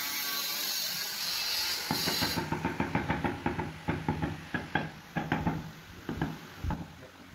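Hammer tapping a granite skirting strip along the base of the wall to seat it, a quick run of sharp knocks about three or four a second that starts about two seconds in. A steady hiss comes before the tapping.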